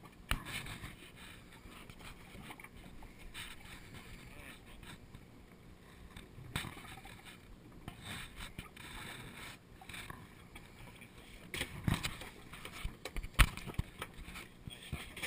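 Water sloshing against a drifting boat's hull, with scattered knocks and thumps on the deck that come louder and more often near the end.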